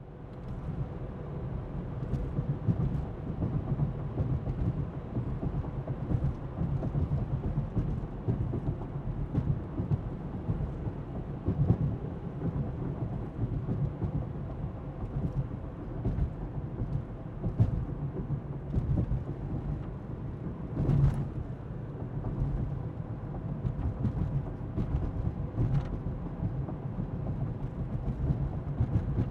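Inside a moving car: a steady low rumble of tyres on the road with a constant engine hum, fading in at the start. Scattered light clicks and knocks from the suspension run through it, with one louder bump about two-thirds of the way through.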